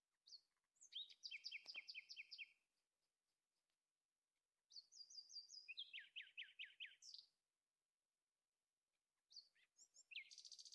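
Faint bird song: three phrases a few seconds apart, each a quick run of repeated clear notes, the last beginning near the end.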